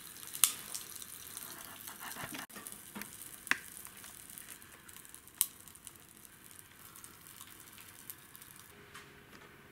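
Carbonated soft drink fizzing, a fine crackling hiss with a few sharper pops, fading away near the end.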